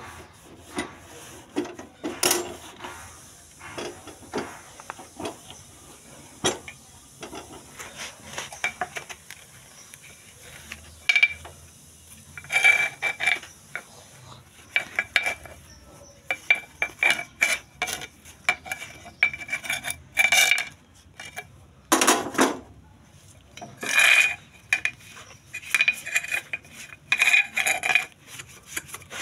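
Metal gas-stove parts being handled and scrubbed: repeated metallic clinks and scrapes, many of the clinks ringing briefly at the same pitch, coming more often in the second half.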